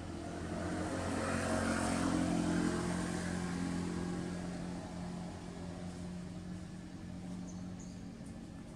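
A motor vehicle passing by. Its engine hum and road noise grow louder to a peak about two to three seconds in, then fade away.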